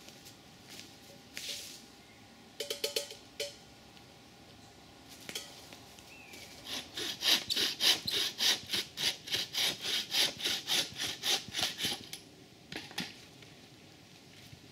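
Hand bow saw cutting through a piece of wood with quick back-and-forth strokes, about three a second, for some five seconds starting about halfway in. A few light knocks come before the sawing.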